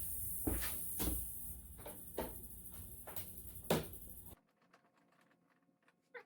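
A few sharp clicks and knocks from plastic motorcycle fairing side covers and hand tools being handled as the panels are taken off, over steady background noise. The sound cuts off abruptly about four seconds in.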